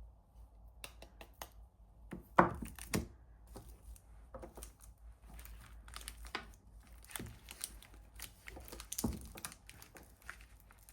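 Soap wrapper being crinkled and torn open by hand: irregular crackling and clicking, with two louder knocks, one a couple of seconds in and one near the end.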